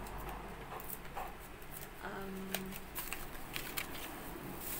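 Plastic packaging crinkling and rustling as it is handled, with scattered light clicks.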